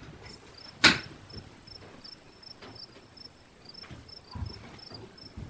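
Cricket chirping steadily, about four short high chirps a second, with a sharp knock about a second in.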